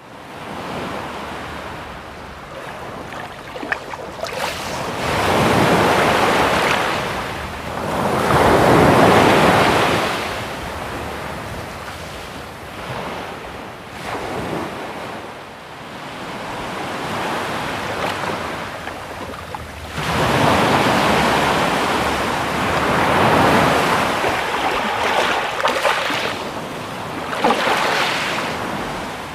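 Sea waves breaking and washing in, as a rushing noise that swells and fades in repeated surges every few seconds, the loudest about eight to ten seconds in.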